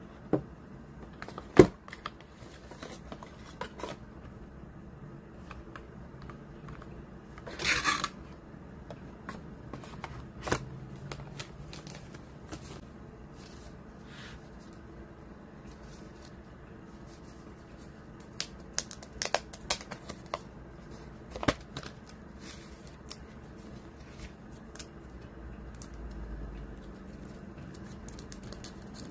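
Cardboard packaging and paper handled by hand: scattered sharp taps and clicks of boxes and inserts, a brief rustling scrape about 8 s in, and a run of small clicks and knocks later on.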